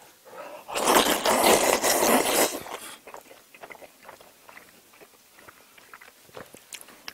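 Jjajang noodles in black bean sauce slurped loudly for about two seconds, then quieter chewing with scattered small clicks.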